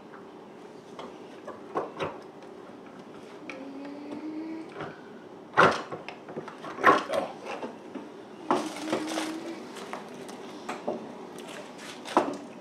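Irregular knocks, clicks and plastic clatter as a refrigerator ice maker's mounting nuts are loosened and the ice maker assembly is worked free and lifted out of the freezer, with the loudest knocks in the second half.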